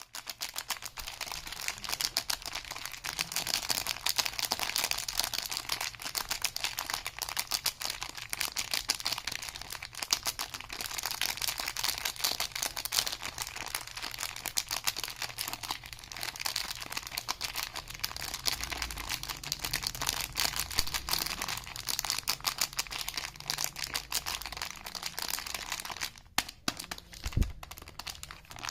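Soap wrappers crinkling and tearing as bars of soap are unwrapped, a dense run of rapid crackles. It eases off near the end, where a single low thud is heard.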